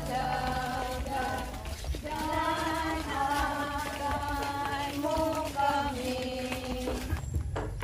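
Background music: a song with a sung vocal melody of held notes.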